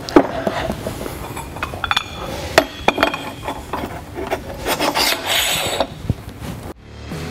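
Steel locking collars sliding and rubbing along an aluminum tie rod center bar as it is handled on a wooden pallet, with scattered sharp clinks and knocks of metal against metal and wood.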